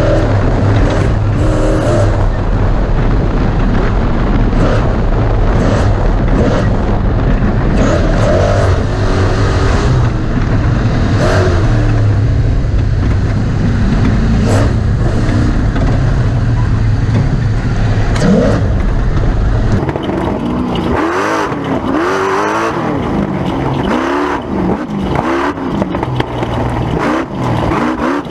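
Ford Ranger class 1450 off-road race truck engine revving up and down over and over under a heavy low rumble. About two-thirds of the way in the rumble drops away and the engine's rising and falling revs stand out clearly.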